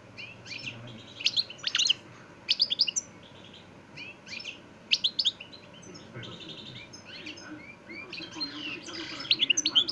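European goldfinch singing: phrases of quick, high twittering chirps and trills mixed with buzzy rattling notes, broken by short pauses and becoming denser and louder near the end.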